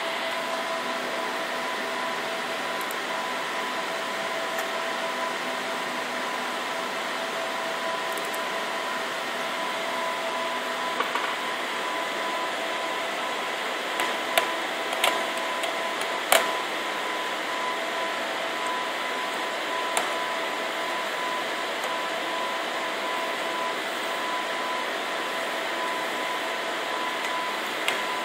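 Steady fan-like hum with two faint steady whining tones, and a handful of short sharp clicks scattered through, the loudest about halfway.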